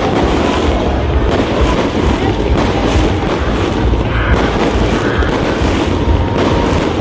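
Fireworks exploding in a string of booms over a continuous low rumble, with the voices of a crowd beneath.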